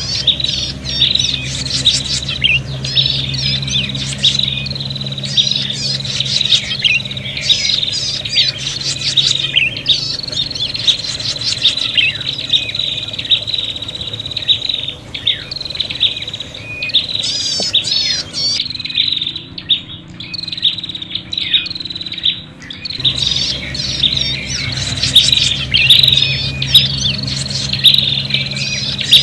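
Prinias (prenjak) calling noisily in fast, repeated chattering bursts over a held high whistle, the agitated, quarrelsome calls used as a lure to draw other prinias in. The calling eases for a few seconds past the middle, then picks up again. A steady low hum runs beneath it.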